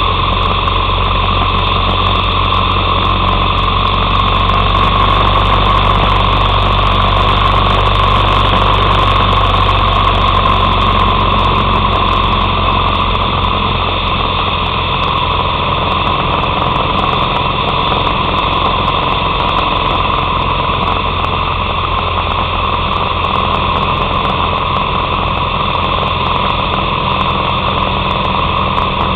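Harley-Davidson Sportster 883's air-cooled V-twin running steadily under way on the open road.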